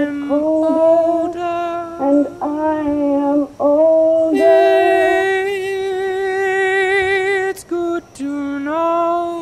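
A woman singing a slow melody solo, gliding into long held notes with short breaths between phrases. The longest note is held for about three seconds in the middle.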